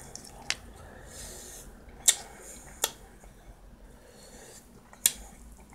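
Peeling cooked shrimp by hand and eating: about four short, sharp clicks and smacks spread across a few seconds, with a soft breath about a second in.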